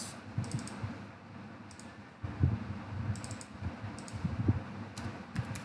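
Clicks of a computer mouse and keyboard, in short clusters every second or so, with some dull low knocks between them.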